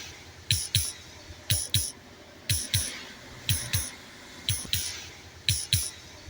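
Simulated heartbeat from a heartbeat plush toy's pulsing insert: a steady double thump, lub-dub, about once a second, each beat a low thud with a clicky edge.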